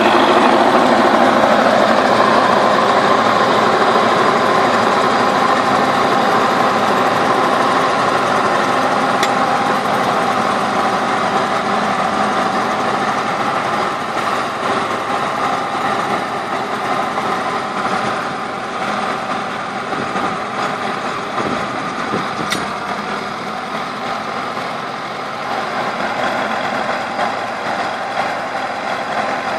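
Turbocharged T-40 tractor's four-cylinder air-cooled diesel running steadily under load while driving a rear rotary tiller through the soil. The sound grows gradually fainter as the tractor moves away.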